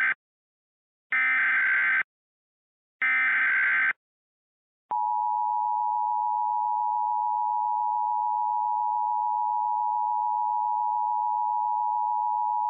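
Emergency Alert System SAME header: short digital data bursts of warbling tones, the last of three ending near the start and two more following a second apart. Then the steady two-tone EAS attention signal starts about five seconds in and holds for about eight seconds, opening a new alert message.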